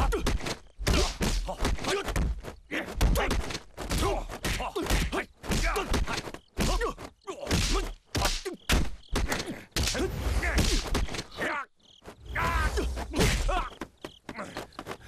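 Fight-scene sound effects for a hand-to-hand kung fu fight: a fast, dense run of punches and kicks landing, mixed with the fighters' grunts.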